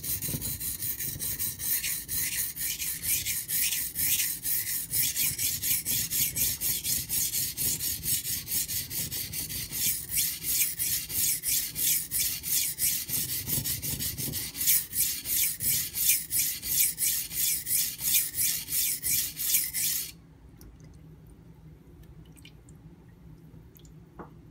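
High-carbon stainless steel knife edge being stroked back and forth on a coarse 180-grit Nubatama Ume whetstone, a rhythmic rasping scrape at about three strokes a second. The steel is cutting quickly on the stone. The strokes stop abruptly about twenty seconds in.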